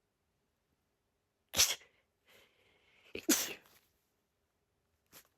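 A woman sneezing in a rapid, repetitive fit, which for her is a pre-migraine symptom. One sharp sneeze comes about a second and a half in, then a short sneeze runs straight into a full one, and a brief faint one follows near the end.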